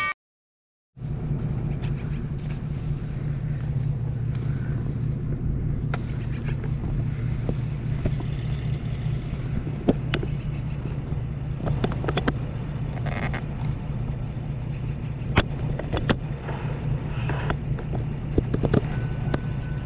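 A steady low engine rumble, with scattered clicks and ticks, starting after about a second of silence.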